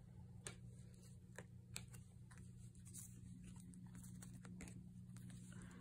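Faint, scattered clicks of Panini Select basketball trading cards being slid one by one from the front to the back of a hand-held stack, over a low steady hum.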